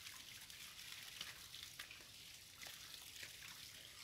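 Faint trickling of water with small scattered splashes, a thin stream running down a rock face into a pool.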